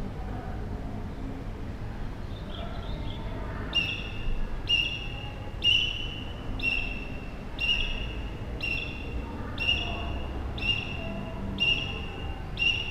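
A whistle blown in short, even, high-pitched blasts about once a second, around ten in all, starting a few seconds in. It is heard from about 20 meters away over a low steady background rumble.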